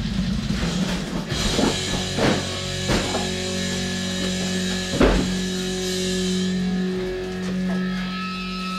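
Rock music with guitar and drums playing over a stereo in the room.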